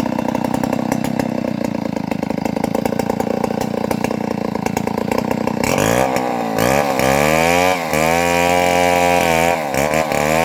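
Chainsaw engine running at a steady low speed, then revved up from about six seconds in. Its pitch climbs, holds high and dips briefly a couple of times.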